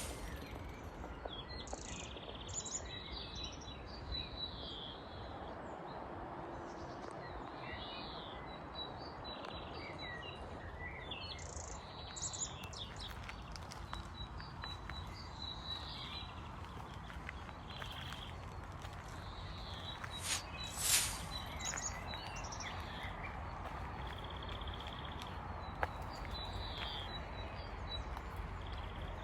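Forest birds singing and calling: many short chirps and whistles over a steady low background noise, with a fast repeated ticking note through the first half. A louder, sharp high call comes twice about two-thirds of the way through.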